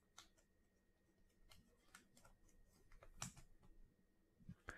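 Near silence, with a few faint clicks and light rustles of trading cards being handled, loudest about three seconds in.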